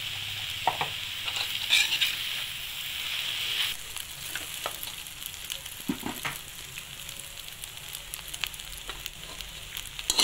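Chopped kottu roti with vegetables and egg sizzling in a hot wok, a steady sizzle, while a metal spatula scrapes and clinks against the pan as it is stirred. The sizzle gets a little quieter about four seconds in.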